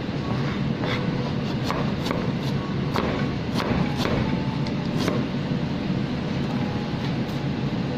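Large kitchen knife slicing ginger root on a plastic cutting board: sharp knocks of the blade on the board, about two a second and unevenly spaced. A steady low rumble runs underneath.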